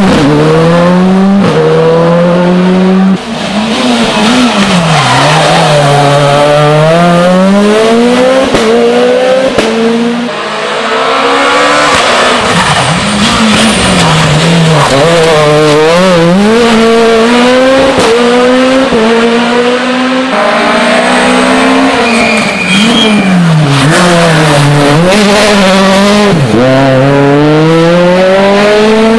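Rally car engines at full throttle on a closed stage, revving hard up through the gears and dropping back repeatedly under braking into bends, with some tyre squeal.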